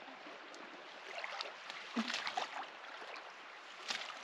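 River water running, with a scatter of small splashes and knocks. A louder one comes about two seconds in and another near the end.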